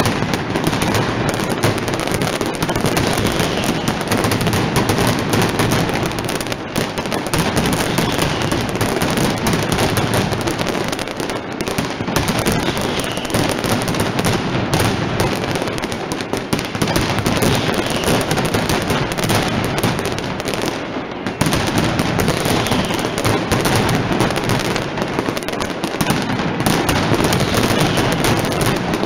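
Mascletà firecrackers going off in a rapid, continuous barrage of loud bangs that merge into a dense rattle, with a brief slight lull about two-thirds of the way through.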